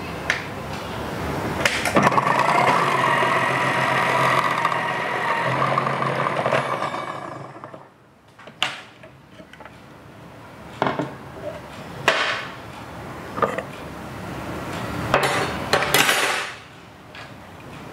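Philips HR7776 food processor motor starting up and running steadily with a whine as it grates carrot through the grating disc, spinning down about seven seconds in. Then come clicks and knocks of the plastic lid, pusher and bowl being handled.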